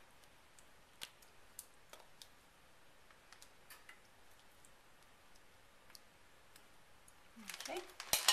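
Faint, scattered clicks and scrapes of a metal spoon against a ceramic baking dish while thick tomato sauce is spread over pasta. Near the end a plastic bag starts to crinkle.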